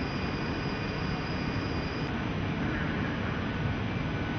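Steady drone of a JNR Class EF65 electric locomotive standing at the platform, its equipment running with an even low rumble, mixed with station ambience.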